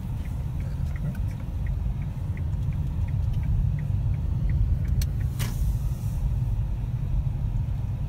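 Low rumble of a car's engine and tyres heard from inside the cabin as it moves slowly while parking, with a faint regular ticking about three times a second. A single click and a short hiss come about five seconds in.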